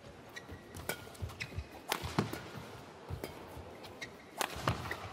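Badminton rally: a series of sharp racket strikes on the shuttlecock, the loudest about four and a half seconds in, with brief squeaks of shoes on the court.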